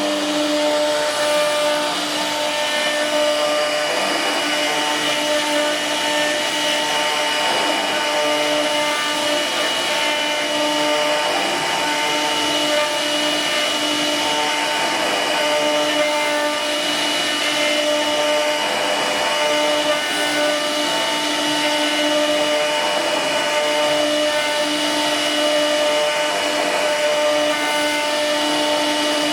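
CNC machine's spindle motor running steadily while cutting: a constant whine of several tones over an even hiss.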